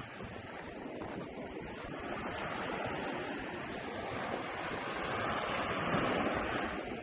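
Ocean surf breaking and washing up the beach, a steady rush that swells to its loudest about five to six seconds in and then eases.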